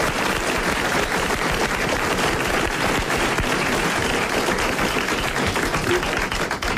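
Studio audience applauding steadily, greeting a guest just introduced by name.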